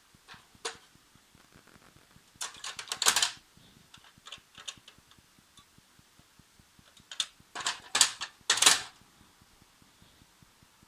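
HP LaserJet M104a laser printer's internal mechanism clattering in two bursts of rapid clicks, one about two seconds in and one about seven seconds in, with a few single clicks between.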